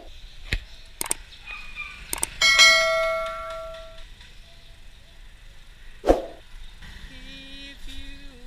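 A few sharp clicks, then a small bell struck once, ringing out and fading over about a second and a half. A single loud thump comes later.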